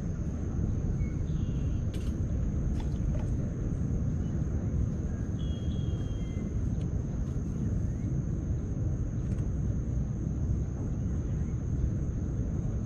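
Outdoor ambience: a steady low rumble with a thin, steady high whine above it, a few faint ticks, and one short chirp about five and a half seconds in.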